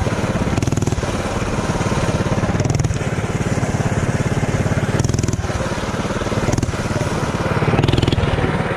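Mini bike engine running hard as it is ridden, its rapid firing note easing off briefly every second or two and coming back.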